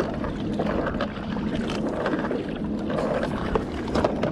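Steady wash of wind on the microphone and water lapping against a plastic kayak hull, with a few small clicks near the end as a clear plastic lure box is snapped shut.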